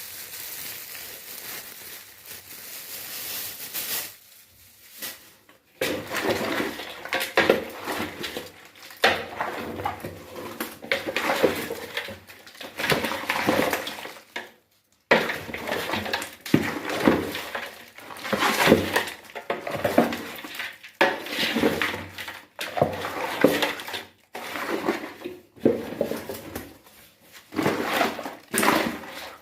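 Kitchen utensils clinking, knocking and scraping against pots and dishes in irregular strokes. There is a brief lull about a quarter of the way in and another about halfway through.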